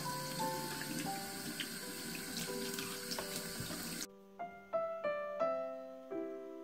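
Kitchen tap running into a stainless steel sink while hands rub under the stream; the water cuts off suddenly about four seconds in. Gentle piano music plays over it throughout.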